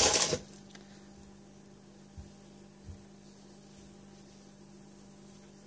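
A brief loud rustle cuts off right at the start, leaving a quiet steady electrical hum with two soft low thumps about two and three seconds in, as powdery bath bomb mixture is packed by hand.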